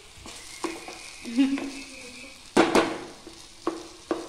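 A spoon stirring and scraping avial, vegetables in ground coconut and curd, around a non-stick pan over a soft sizzle. There are several sharp scrapes, the loudest about two and a half seconds in.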